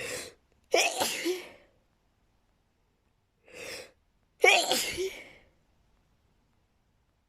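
A person sneezing twice, about three and a half seconds apart, as part of a sneezing fit. Each sneeze is a sudden loud burst that tails off over about a second, coming right after a shorter, quieter intake of breath.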